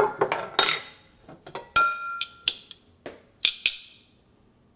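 Metal cookware and utensils being handled: a series of clinks, knocks and short scrapes, one clink ringing briefly about two seconds in.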